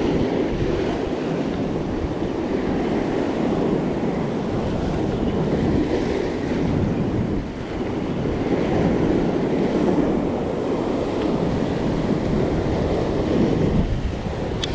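Wind buffeting the microphone over surf washing and breaking against a rock ledge: a steady, rushing noise that swells and eases.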